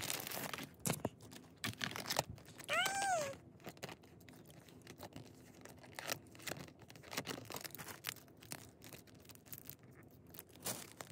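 Plastic packaging being torn open and crinkled by hand, with small clicks and rustles of handling that thin out after the first few seconds. A brief high vocal sound, rising then falling, about three seconds in.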